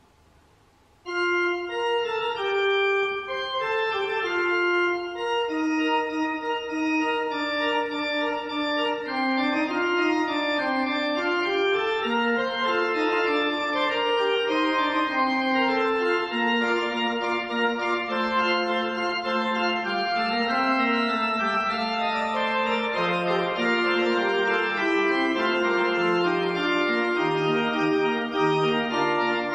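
Pipe organ playing a slow piece of held chords in several moving parts, starting about a second in. Lower bass notes join in the second half.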